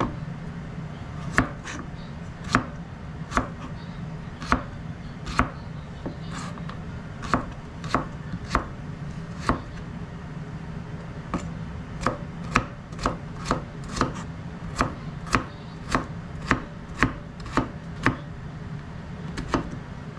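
Kitchen knife chopping carrot on a cutting board: sharp knocks of the blade on the board, spaced about a second apart at first and quicker, about two a second, in the second half. A steady low hum runs underneath.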